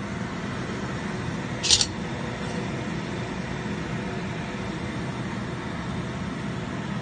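Steady rushing noise of a stainless steamer pot on the boil, with one brief high clink a little under two seconds in as a ceramic plate is set on the steamer's metal rack.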